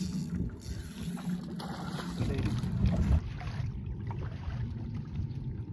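Wind rumbling on the microphone over open water, with water lapping and trickling.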